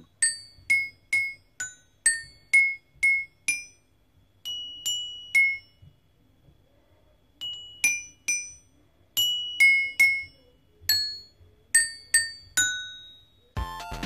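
Toy xylophone's metal bars struck one at a time with a mallet: about two dozen high, ringing single notes at a steady pace of roughly two a second, with a pause of over a second near the middle. Background music comes in near the end.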